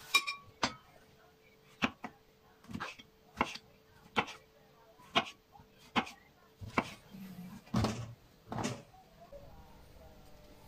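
Kitchen knife slicing button mushrooms on a plastic cutting board: about eleven sharp taps of the blade striking the board, a little under one a second, the last few heavier.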